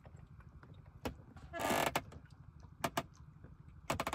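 A longline being hauled in by hand over the side of a wooden boat: sharp knocks and clicks, one about a second in, two near three seconds and a quick cluster near the end, with a brief rush of noise about one and a half seconds in. A low steady rumble runs underneath.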